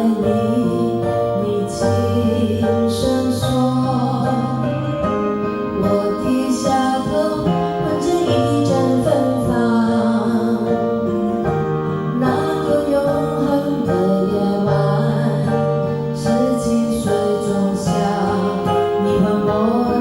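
A song played through a karaoke sound system: a singing voice over a backing track with held bass notes.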